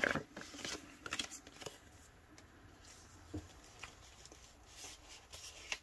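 Sheets of crafting paper rustling and crackling as they are handled, unfolded and laid down, with the denser rustling in the first second or two and only a few faint ticks after.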